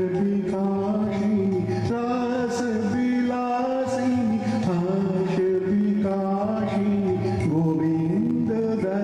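A man singing a slow song with long held notes that slide between pitches.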